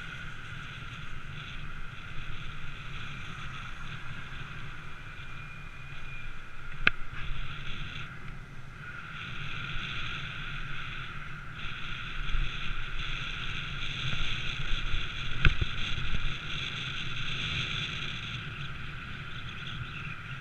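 Steady wind and road noise rushing over the microphone of a camera riding along a street, with two sharp knocks about seven and fifteen seconds in.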